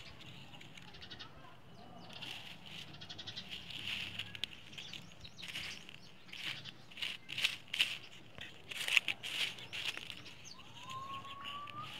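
A stick scraping and prodding through dry ashes and embers, a quick run of rustling, crackling strokes that grows louder in the second half. A short rising whistle sounds near the end.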